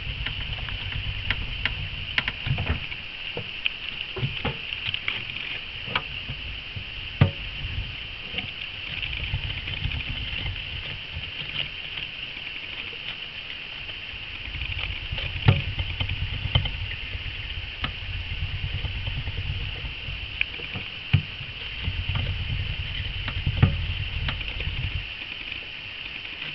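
A pet hamster moving about its cage: irregular small clicks, scratches and knocks, first on a plastic saucer wheel, then from about halfway through among tissue-paper bedding. Under them run a low rumble that comes and goes and a steady high hiss.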